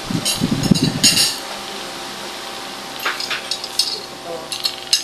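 Forks clinking and scraping on plates as food is served and eaten. A burst of clatter comes in the first second or so, then a few lighter clinks about three seconds in and again near the end.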